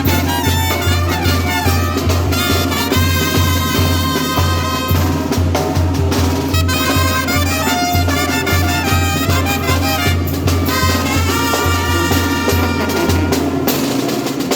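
A children's brass band playing a lively tune, with brass carrying the melody over a steady bass and drum beat.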